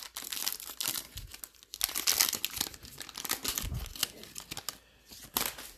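Trading card pack wrapper being torn open and crinkled by hand, an irregular crackling that is loudest about two seconds in and dies down near the end.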